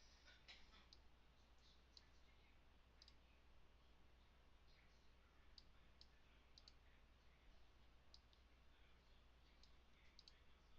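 Faint computer mouse clicks, a dozen or so at irregular intervals as someone clicks through driver-installation dialogs, over a low steady hum.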